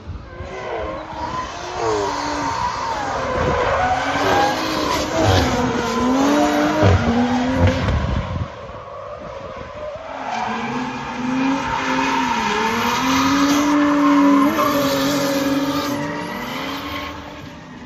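Two drift cars, one a turbocharged BMW E36 straight-six, revving hard in tandem, engine pitch rising and falling with the throttle, over a hiss of tyres sliding and squealing. The sound dips briefly about halfway, then builds again.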